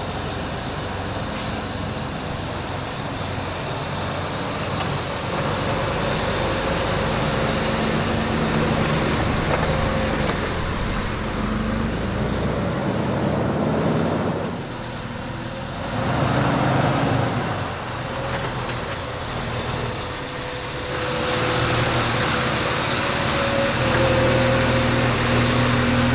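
Jeep Wrangler TJ's 4.0-litre straight-six engine running as the Jeep drives at low speed, its engine note shifting up and down with a brief drop in level about halfway through.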